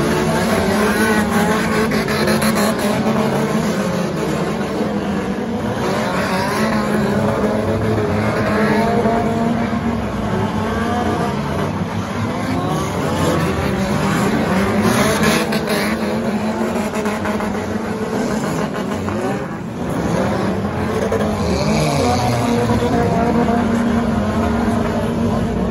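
Engines of a pack of stock cars racing on a dirt track: many engines at once, their pitch rising and falling as the cars accelerate and lift off, with a short lull about two-thirds of the way through.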